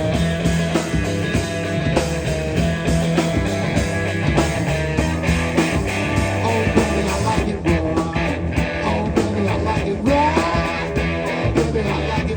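Live rock-blues trio playing an instrumental passage: guitar with a steady beat and a low bass line, the guitar bending notes in the second half.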